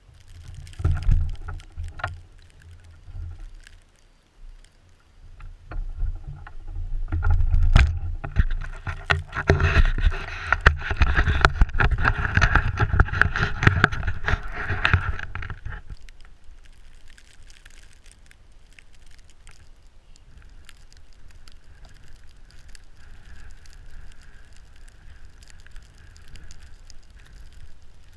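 Jeep Grand Cherokee ZJ driving through deep fresh snow: the engine works under load while the tyres churn and crunch the snow, with many sharp clicks over a rumble. After about sixteen seconds it settles to a quieter, steady running.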